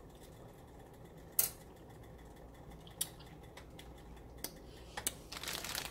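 A few sharp clicks and clinks of metal kitchen utensils, as a spoon is fetched and handled for tasting the sauce. The loudest comes about one and a half seconds in, with more in quick succession near the end, over a low steady hum.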